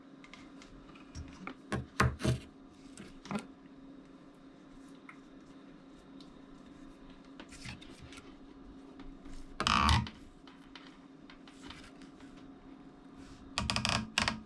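Clicks and knocks of the Z-height level probe being fitted to a CNC machine, with a short louder burst about ten seconds in and another near the end, over a steady low hum.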